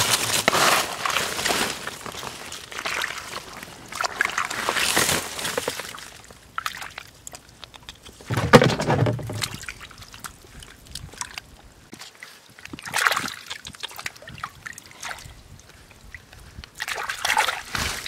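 Hands stirring and splashing through shallow muddy water and wet plant debris in about five bursts a few seconds apart, feeling for snails.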